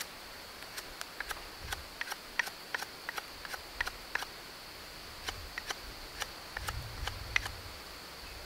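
Knife whittling a piece of green wood: a quick, irregular series of sharp clicks as each shaving stroke bites and slips off the wood.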